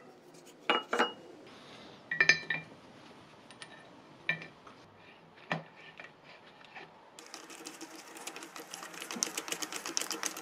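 A few sharp metallic clinks and taps, the loudest with a brief ring about two seconds in. Then, from about seven seconds in, a rapid run of fine clicks as a screwdriver turns a star-head screw into the jaw plate of a bench vice.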